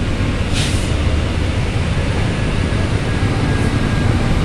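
Low, steady rumble of truck and car engines, with a short hiss about half a second in.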